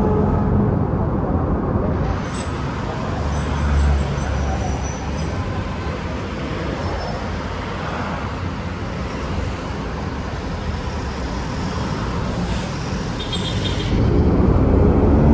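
Diesel city buses and cars passing on a busy street: a steady low engine and tyre rumble that grows louder near the end as a bus comes close.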